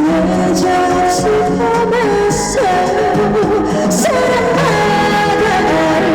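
Korean trot song performed live: a woman's voice singing a melody with vibrato over an instrumental accompaniment with a steady beat.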